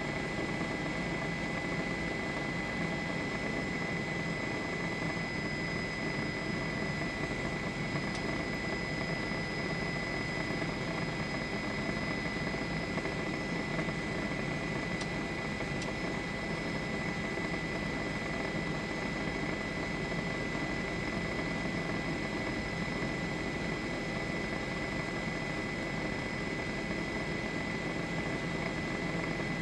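Steady helicopter engine and rotor noise, heard from on board, with a thin high-pitched tone running through it.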